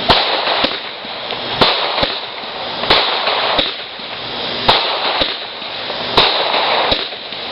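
Consumer fireworks going off: a string of sharp bangs, roughly one a second, with crackling bursts filling the gaps between them.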